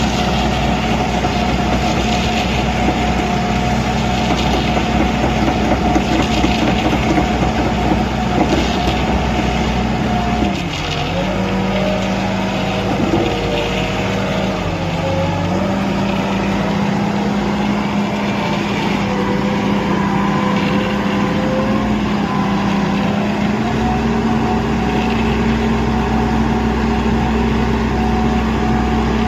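Engine of an Ajax Fiori ARGO 4300 self-loading concrete mixer running steadily. About ten seconds in its speed drops and stays lower, then rises back to its earlier pace near the end.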